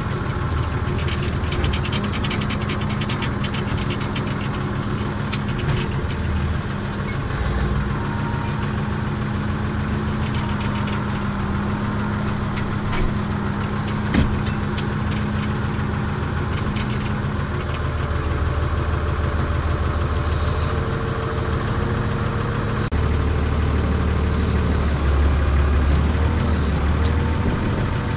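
Renault tractor's diesel engine running steadily, heard from inside the cab. Its note shifts about two-thirds of the way through and it runs louder near the end, with a single sharp click about halfway.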